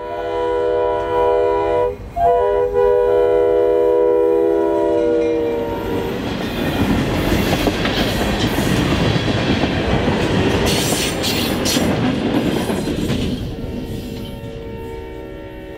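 RJ Corman GP16 diesel locomotive blowing its horn in two long blasts, the second ending about six seconds in. It then passes close, its engine and wheels loud, with a quick run of rail-joint clicks. Near the end one more blast sounds, fainter, as it moves away.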